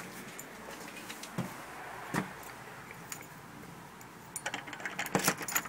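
A few faint clicks, then from about four and a half seconds in a rapid run of metallic jingling and clicking: a bunch of keys being handled at a door lock.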